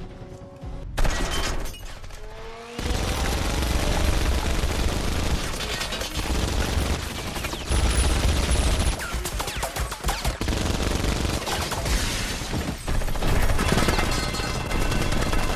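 A loud impact about a second in, then sustained rapid gunfire from about three seconds on, continuing without a break: a rotary minigun firing in a film action scene.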